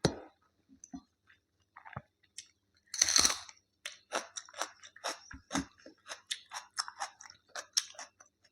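A person biting into food and chewing: one loud bite about three seconds in, then a quick run of short chewing clicks and smacks.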